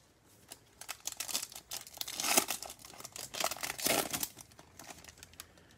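Foil wrapper of a Topps Chrome trading-card pack crinkling and tearing as it is opened. The crackling starts about a second in and is loudest about two seconds in and again near four.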